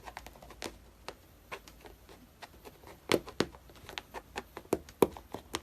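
Irregular light tapping and clicking, a dozen or more sharp little knocks spread unevenly, with the loudest ones about three seconds in and again near five seconds.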